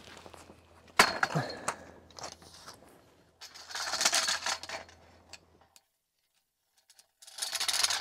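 Tarp strap buckle and pole hardware clinking, with one sharp clink about a second in, then tarp fabric rustling as it is pulled down into a new pitch. The sound drops out completely for about a second near the end.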